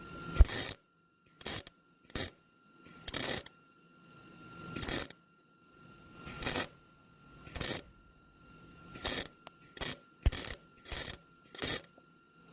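Millermatic MIG welder laying short bursts of weld onto a broken exhaust manifold bolt stub in the cylinder head, building up metal for an extractor to grip. About a dozen brief bursts, irregularly spaced, over a faint steady tone.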